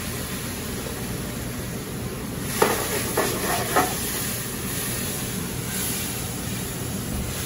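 Port and red wine boiling in a hot sauté pan with shallots, garlic and herbs, making a steady sizzling hiss as it reduces. Three short clinks of a utensil against the pan come about two and a half to four seconds in.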